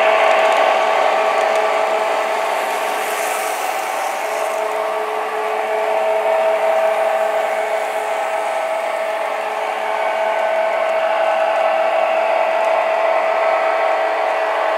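Electric model trains running around oval track: a steady whir of the locomotive motors with the rumble of wheels rolling on the rails, swelling and easing as the trains pass close by.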